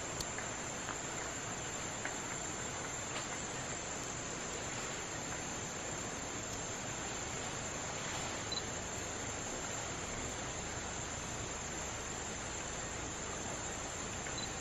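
Insect chorus: a steady, high-pitched drone that holds unbroken throughout, over a soft even hiss, with a faint tick or two.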